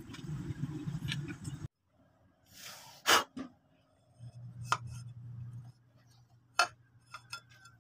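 A cut glass lens clicking and tapping as it is pressed into a homemade diving-mask frame of PVC ring lined with truck inner-tube rubber: three sharp clicks about a second and a half to two seconds apart, the first the loudest, with light ticks between. Before them is a low rumbling noise that cuts off abruptly.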